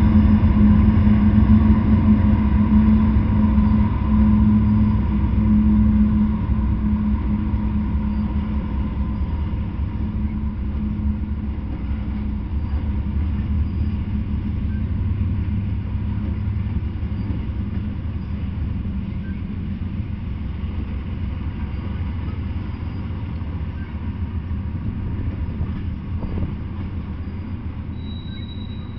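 Freight train passing: the diesel engines of Canadian Pacific locomotives drone deeply over a heavy rumble that fades over the first several seconds, then the steady rumble and rattle of tank cars rolling by, slowly growing quieter. A brief high-pitched wheel squeal near the end.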